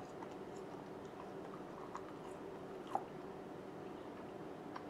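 Faint chewing of a dried tempura squid snack with a tough, jerky-like texture: a few soft clicks and mouth sounds, the sharpest about three seconds in, over a steady low hum.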